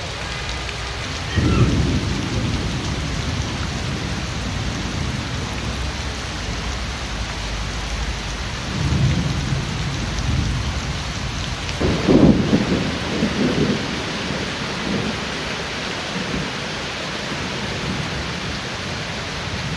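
Steady rain falling, with low rumbles of thunder three times: one starting suddenly about a second and a half in, another around nine seconds, and the loudest at about twelve seconds, rolling on for a couple of seconds.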